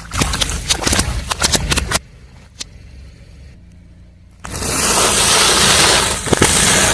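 A car tyre rolling over and crushing crunchy objects: a burst of rapid crackling snaps for about two seconds, then, after a quieter pause with a single click, a loud rushing, grinding noise with a few more snaps near the end.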